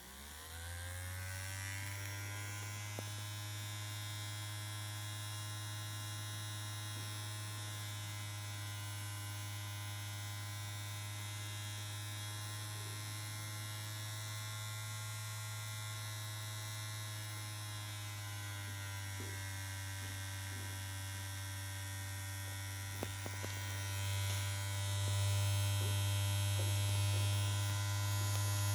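Homemade tornado siren winding up from silence, its pitch rising over the first second or two, then holding a steady tone over a strong low hum. A few faint clicks come later, and the sound grows somewhat louder near the end.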